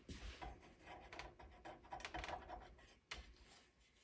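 Faint handling noises: irregular rubbing and scratching as an RC dump truck is handled, with a sharp click about three seconds in.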